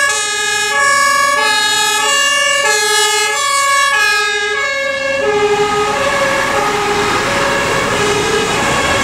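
Two-tone sirens of fire brigade vehicles, alternating high and low notes about every 0.6 s. About five seconds in they drop slightly in pitch and become mixed with rising vehicle noise as the vehicles pass close by.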